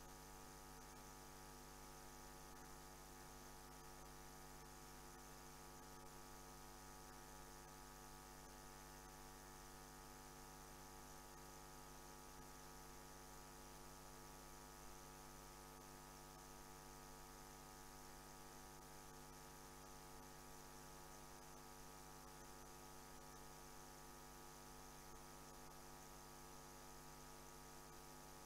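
Near silence apart from a steady electrical mains hum, a low buzz with many overtones.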